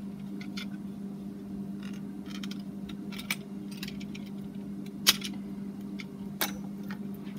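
Cut plastic Nerf blaster parts being handled: scattered light clicks and taps, with two sharper clacks about five and six and a half seconds in, over a steady low hum.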